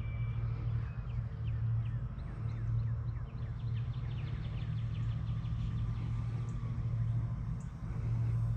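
Electric RC model plane, an E-flite P-51D Mustang, flying at a distance as a low steady hum. Many birds chirp quickly over it through the first half.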